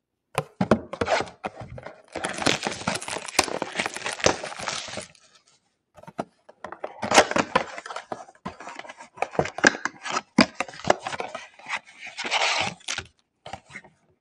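A cardboard trading-card box being torn open by hand: ripping and scraping of the packaging, with crinkling and many sharp clicks, in two long stretches.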